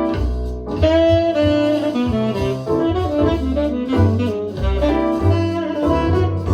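Jazz with a saxophone lead over a walking low bass line, played back through a KEF iQ1 bookshelf speaker.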